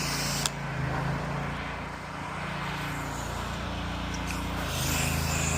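Pressure washer's engine running steadily with water spraying; the spray hiss cuts off with a click about half a second in. The spray comes back on near the end, and the engine note changes as it does.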